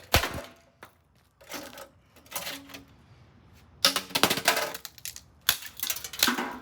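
Axe blows hacking into the sheet-metal housing of an Emerson microwave, with metal clattering: a sharp hit at the start, a few lighter knocks, then a loud cluster of strikes about four seconds in and more near the end.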